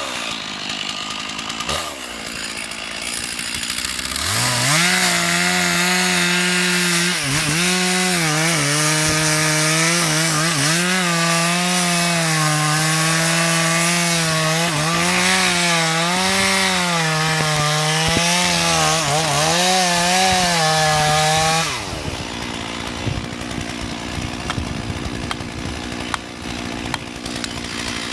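Chainsaw revving up about four seconds in and running at high revs while cutting wood, its pitch dipping briefly now and then as the chain takes load, then dropping back to a lower, rougher run near the end.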